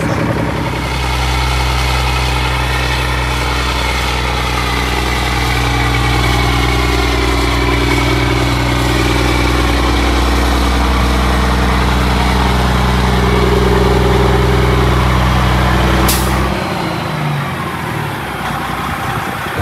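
Semi truck's diesel engine idling steadily. Its sound cuts off abruptly about three-quarters of the way through, just after a sharp click.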